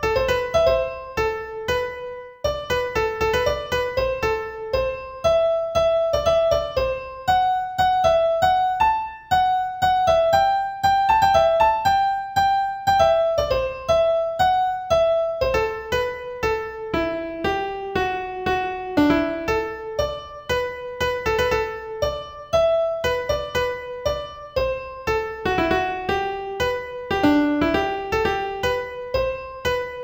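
Music: a HumOn app arrangement of a hummed tune, with a piano-like keyboard playing a simple melody note by note over accompaniment.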